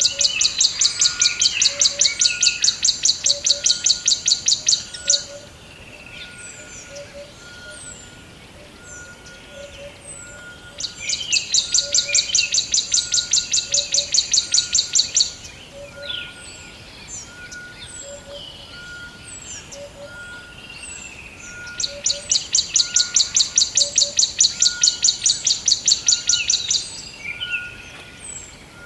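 Forest birds singing: one bird gives a loud, rapid, high-pitched trill lasting about five seconds, three times about ten seconds apart. Between the trills are short high chirps from other birds and a lower note repeated about once a second.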